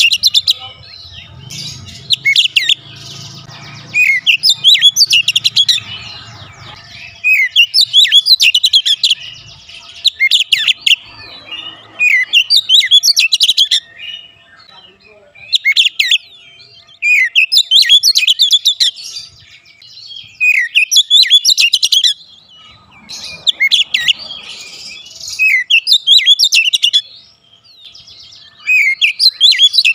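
Oriental magpie-robin singing in full voice: loud, varied whistled phrases of rapid notes, one to three seconds long, repeated about every two seconds with short pauses between.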